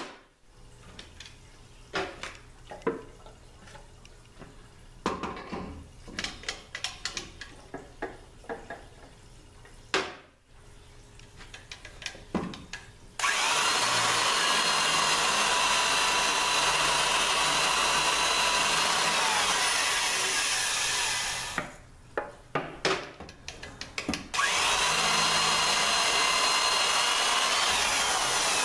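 Old electric drill turning a cutter through a jig into the front (second and fifth) servo bore of a Ford 5R55S aluminium transmission case, boring out the worn bore to take a repair sleeve. After about 13 seconds of clicks and knocks from the tools being set up, the drill runs steadily for about eight seconds and stops, its whine dropping just before. It starts again about three seconds later.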